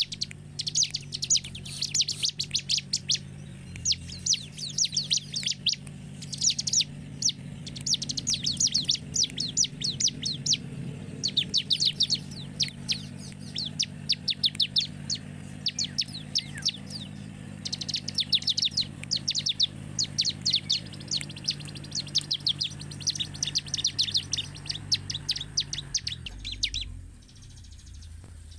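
Bar-winged prinia (ciblek) singing: rapid series of sharp, high chips in bursts of one to three seconds with short pauses between them. A steady low hum runs underneath and drops away near the end, when the song briefly stops.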